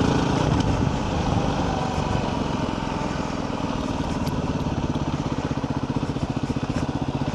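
Yamaha WR250R's single-cylinder four-stroke engine running at low, steady revs while the motorcycle is ridden, its exhaust pulses even, easing off slightly about a second in.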